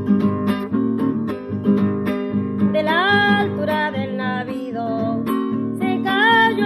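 Acoustic guitar strumming steadily, with a voice singing a melody from about three seconds in.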